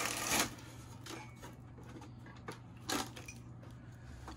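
Handling noise of a sheet-metal sign housing being lifted and tilted on a workbench: a short rustle at the start, then a few light knocks and clicks. A steady low hum runs underneath.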